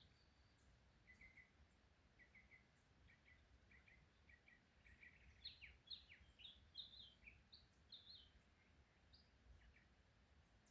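Faint bird calls: short paired chirps repeated for the first few seconds, then higher, quick falling calls in a cluster around the middle.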